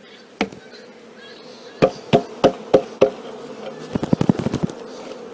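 Empty wooden beehive box knocked hard again and again to shake the last honeybees out of it: one knock, then five about three a second, then a quick rattling run of knocks near the end, over the steady hum of the bees.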